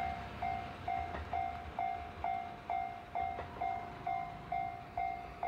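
Japanese railway level-crossing warning bell ringing over and over, about two sharp-starting, steady-pitched dings a second, sounding while the crossing's red warning light is lit.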